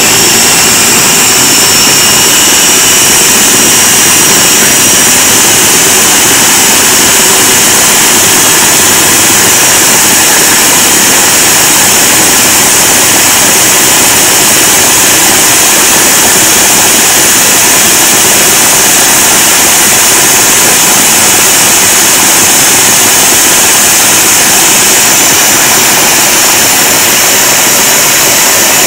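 Top-mounted motor of a countertop blender running continuously and noisily, held down by hand as it blends frozen fruit and yogurt into a smoothie, with a faint high whine over the steady motor noise.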